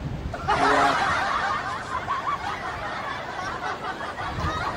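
Laughter: a run of high, quick snickering and giggling that begins about half a second in and keeps going.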